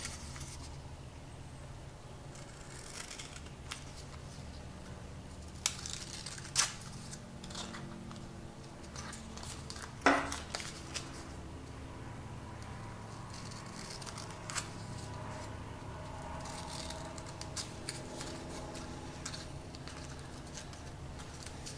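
Scissors snipping through a fabric adhesive wound plaster: a handful of short, separate snips spread out, the loudest about ten seconds in, over a faint steady low hum.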